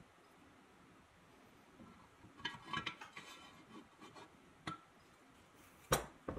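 Metal-on-metal clinks and knocks as a steel quill is handled and fitted into the bore of a 1937 Delta drill press's painted cast-iron head. A cluster of short ringing clinks comes midway, a lone click follows, and a sharper knock, the loudest, comes near the end.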